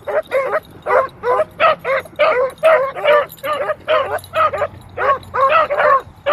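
Beagles giving tongue on a rabbit trail: a steady run of short yelping barks, about three a second, as the hounds track the scent.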